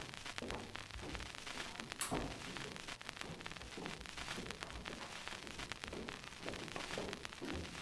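Footsteps climbing a stairwell: dull thuds at a walking pace, with rustling and small clicks between them and one sharper click about two seconds in.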